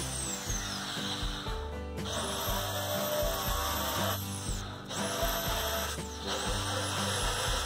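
Electric drill boring holes through a thin sheet-metal cabinet panel with a thick bit. Its motor whines up and spins down in three runs, over background music with a steady beat.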